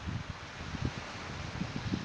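Wind buffeting the microphone in irregular low gusts over a steady outdoor hiss.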